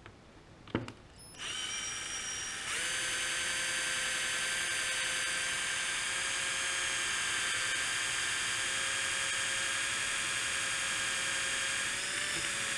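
Cordless drill spinning a diamond hone in a valve seat of a power steering valve body: a steady whine that starts about a second and a half in and grows louder a second later. A single sharp knock comes just before it starts.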